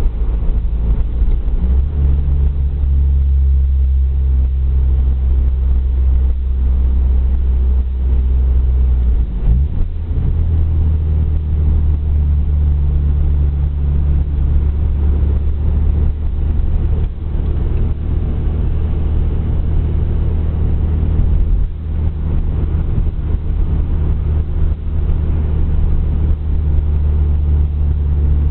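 Steady engine drone and road noise heard from inside a Nissan Sentra driving at town speed, its pitch stepping up near the start and shifting again about ten seconds in.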